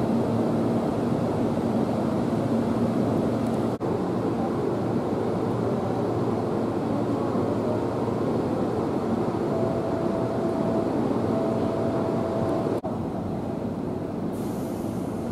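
Seibu 2000 series electric train standing at a platform with its doors open, its onboard equipment running with a steady hum and faint steady tones. The sound cuts off and resumes abruptly twice, about four and thirteen seconds in, and a faint high hiss comes in near the end.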